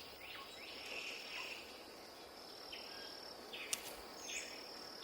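Faint forest ambience: insects trilling as a steady high-pitched tone, with one short tick a little before the end.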